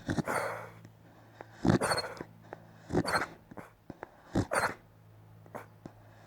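Sleeping dog giving muffled woofs in its sleep, four short breathy huffs about a second and a half apart.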